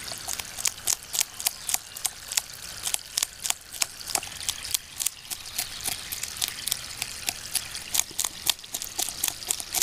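Menpachi (soldierfish) being descaled: a blade scraping against the scales in quick, uneven strokes, several a second.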